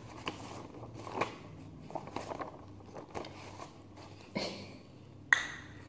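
A sheet of paper rustling and crinkling as it is handled, with scattered soft crackles and ticks, and one short, louder sound near the end.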